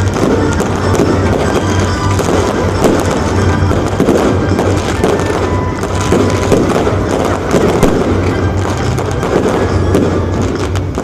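Fireworks display going off continuously: a dense run of bangs and crackling from bursting shells and sparkling comets, with music playing underneath.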